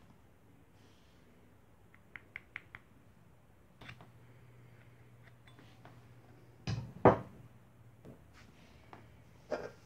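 Handling clicks and knocks from a drill bit in a hand-held drill chuck being worked through a small plastic cap: four quick light ticks about two seconds in, a pair of sharper knocks around seven seconds, and another knock near the end.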